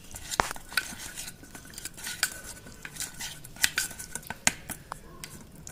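Steel spoon stirring melted chocolate and milk in a small enamel bowl, clinking and scraping against the bowl in irregular strokes. Some of the strikes leave a faint ring.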